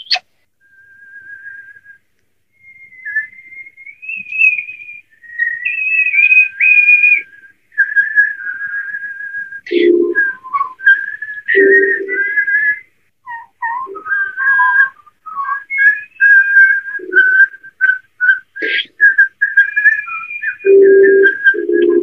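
A pet European starling whistling a long string of mimicked whistle phrases, with sliding and held notes, broken by a few short low notes.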